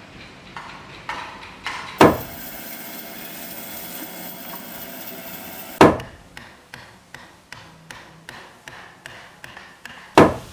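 Hammer blows on timber: a few light taps, then three heavy strikes about four seconds apart, with quicker light taps of about two or three a second between the last two. A steady hum with a faint hiss runs between the first two heavy strikes.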